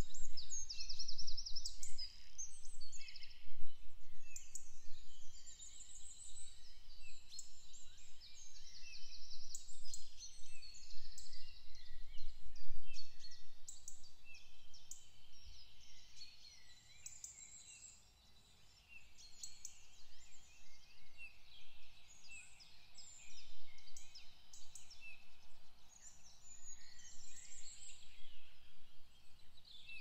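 Several songbirds singing at once in a spring woodland, with overlapping chirps, rapid trills and whistles. The singing thins out briefly a little past the middle, over a faint low rumble.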